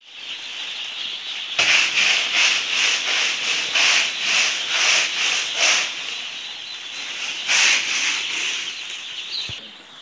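Rhythmic swishing and rubbing strokes of a bundle of plastic bags and rags tied to a long pole, swept against a wall and floor, about two to three strokes a second with a pause before a last few strokes. A crowd of young chicks peeps behind it.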